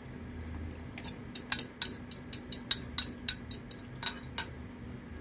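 Metal fork clicking and scraping against the inside of a glass Pyrex measuring jug, a quick run of light clicks several times a second, scraping out the last of a beaten egg-and-milk mixture.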